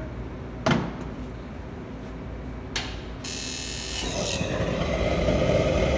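Stainless saucepan set down with a metallic clank on a commercial gas wok burner, then a click and a burst of hissing gas about three seconds in as the burner is lit, after which the flame settles into a steady roar that grows louder.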